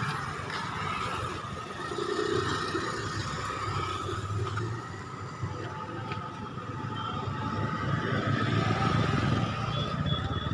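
Street traffic: motorcycles, scooters and cars running past, with a steady low engine hum and a thin steady whine. It grows a little louder near the end.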